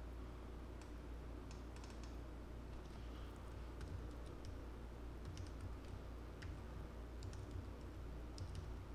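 Computer keyboard typing in short, irregular runs of keystrokes, over a low steady hum.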